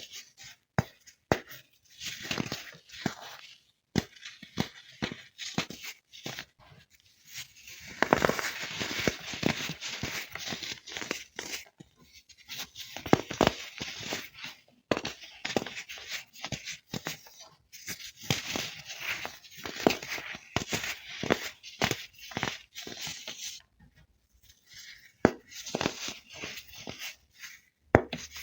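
Pressed baking soda being crushed and crumbled, crisp crunching made of many sharp snaps, in bouts of several seconds with short pauses between.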